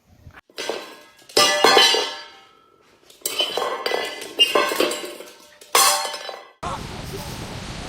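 Hard objects clattering and clinking, like crockery or metal dishes knocked about, in four loud bursts that ring on after each. Near the end it cuts to a steady rushing hiss.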